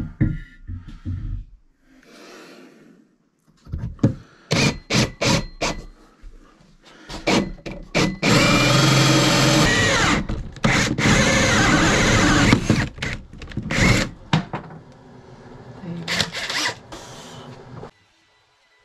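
Cordless drill boring a hole through a wooden countertop for a sink drain: a few short bursts, then a long steady cut from about eight seconds in with a couple of brief pauses, and more short bursts near the end.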